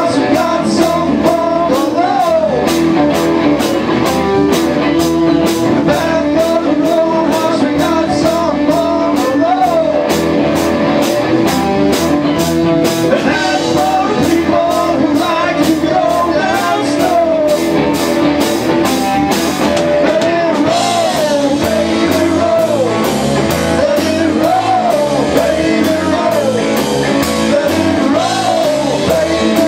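Live blues-rock band playing: electric guitars over a drum kit with a steady beat on the cymbals, and a male lead vocal.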